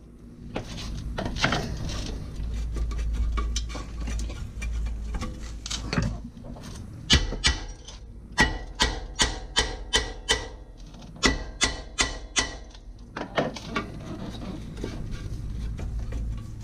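A heavy hammer striking a stuck rear brake disc on a 1998 Toyota Prado, hammering it loose from the hub: a run of about a dozen sharp metallic blows, roughly two a second, each with a short ring. Shuffling and handling noise come before the blows, and the disc is handled near the end.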